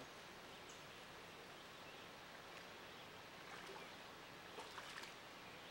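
Near silence: a faint steady hiss of outdoor riverside ambience, with a few faint ticks between about three and a half and five seconds in.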